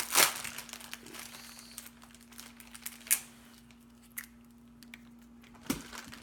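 Wrapper of a chocolate-covered wafer candy bar being crinkled in the hands, with sharp crackles at the start, about three seconds in and near the end.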